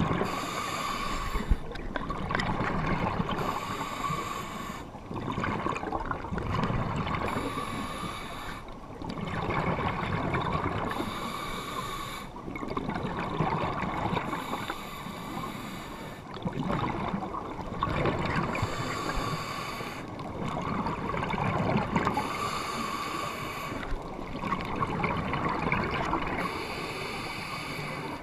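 A scuba diver breathing through a regulator underwater: a hiss and a rush of bubbles that repeat about every four seconds.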